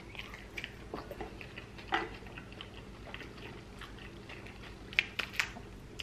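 A person chewing a mouthful of salad and chicken close to the microphone. Soft wet clicks and smacks come at irregular moments, with a few sharper ones about two seconds in and around five seconds in.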